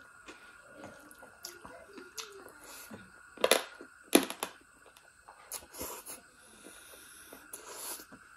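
Close-mic mouth sounds of eating rice and duck curry by hand: wet chewing and smacking, with two loud sharp wet sounds just past the middle as a handful of rice goes into the mouth. A faint steady high tone sits underneath.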